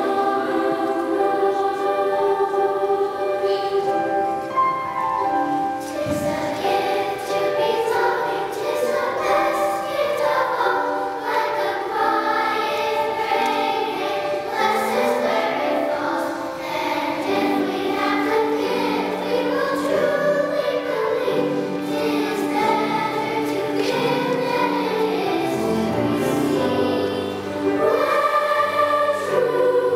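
Large children's choir singing in unison and parts, with sustained sung notes, and lower notes joining beneath the voices in the second half.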